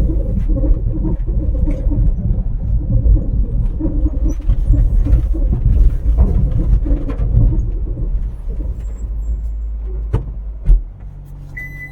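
Car driving on a rough road: a loud, uneven low rumble of engine and tyres with scattered knocks and rattles, then a sharp thump near the end, after which it goes quieter.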